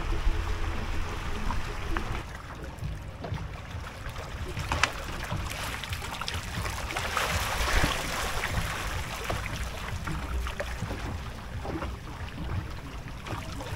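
Water lapping and trickling against a kayak hull, with small splashes and knocks, over a low rumble; the splashing thickens a little past the middle.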